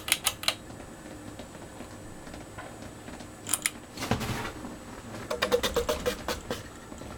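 Ceiling fan pull-chain switch and its chain clicking and rattling as the fan is switched off: a few sharp clicks at the start, two more about three and a half seconds in, and a quick run of about a dozen clicks about five seconds in, with a short rustle just before the run.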